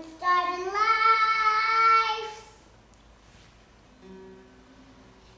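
A young girl singing one long held note, its pitch rising a little at the start, which stops a little over two seconds in.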